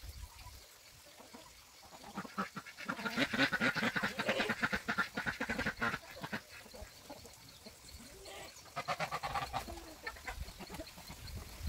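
A flock of ducks quacking in a rapid, busy chatter for a few seconds, followed by a shorter bout of calls near the end.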